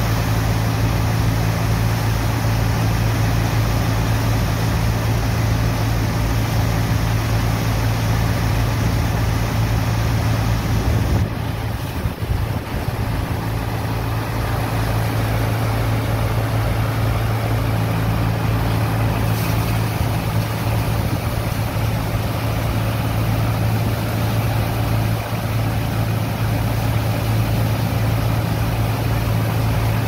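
Sand dredger's engine-driven pump running with a steady low drone, over the hiss of water jets spraying into wet sand. The drone falters briefly about eleven seconds in, then runs on.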